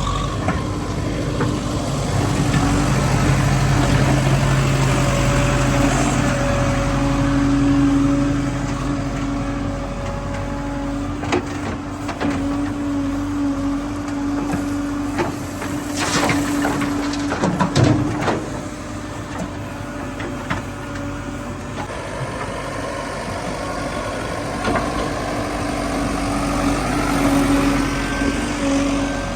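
Diesel engine of heavy earthmoving machinery running steadily, louder for a few seconds early on, with a few sharp metal knocks and clanks in the middle.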